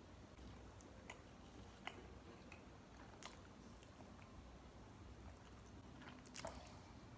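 Faint chewing and mouth sounds of a person eating, with a few scattered sharp clicks and crunches, the most marked about three seconds in and near the end.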